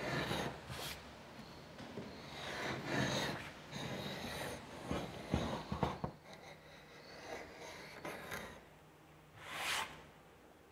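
A reefing hook scraped along a seam between wooden hull planks, cleaning out the joint before caulking: a run of irregular scraping strokes with a few sharp clicks, then quieter, with one more short scrape near the end.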